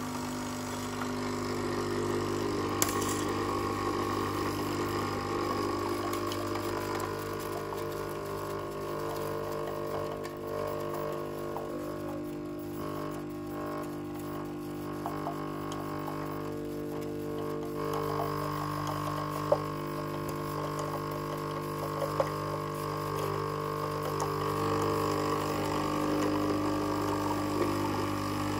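Pump of a Krups Nescafé Dolce Gusto Mini Me capsule machine humming steadily as it pushes hot water through the capsule to brew a milky hot chocolate. The hum's pitch steps a few times as the brew goes on, with a few faint clicks.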